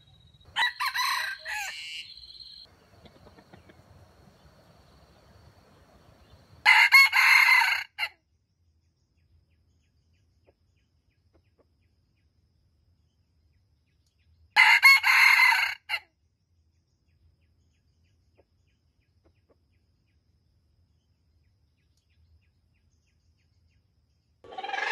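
Red junglefowl roosters crowing: two loud, short crows about eight seconds apart, after a briefer call about half a second in. Loud calling starts again just before the end.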